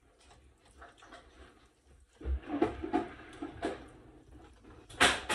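Wooden spoon stirring seasoned shrimp in a ceramic bowl: a soft thump about two seconds in, then a run of light knocks and scrapes against the bowl, and a sharp clatter near the end.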